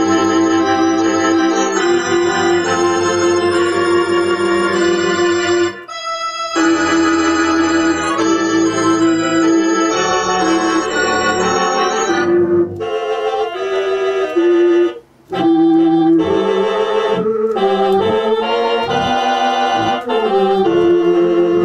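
Rodgers Trio theatre organ playing Artisan digital samples of a Mighty Wurlitzer theatre pipe organ: full held chords and moving notes with a wavering tremulant. The sound breaks off briefly about six seconds in and again around fifteen seconds.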